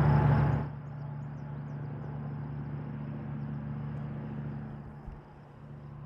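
Steady low mechanical hum, loud for the first moment and then dropping to a quieter level, with faint high chirps of small birds throughout.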